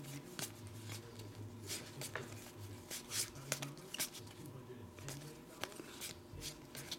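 Glossy Panini Prestige basketball trading cards being slid off a stack one at a time, giving soft, irregular swishes and flicks of card against card about every half second to second.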